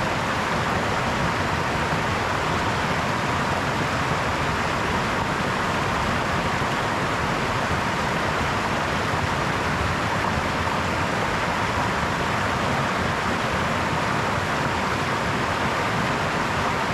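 Babbling brook: water running steadily over stones, a constant even rush with no breaks.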